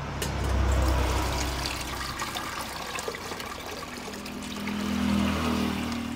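Tamarind water being poured into a cooking pot, a trickling, splashing pour that swells twice.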